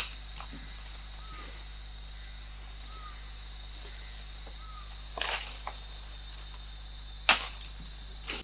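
Jungle ambience: a steady high insect whine and a bird's short chirp repeating about every second and a half, broken by a few sharp cracks and rustles in the undergrowth, the loudest about seven seconds in.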